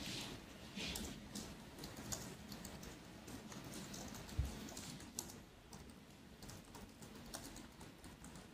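Faint, irregular clicking from a laptop being worked, keys and pointer, over a low room hum, with one soft low thump about four and a half seconds in.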